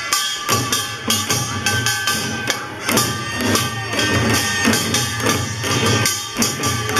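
Korean pungmul folk percussion with sogo, small handheld drums struck with sticks, beaten in a fast, steady, dense rhythm, with a ringing tone running underneath.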